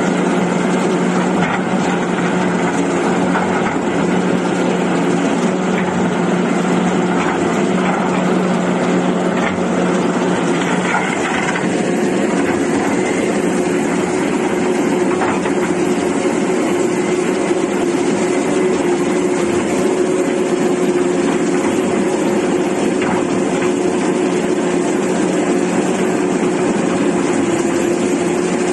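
Komatsu PC450 crawler excavator's diesel engine running steadily. Its low hum shifts to a higher steady note about eleven seconds in.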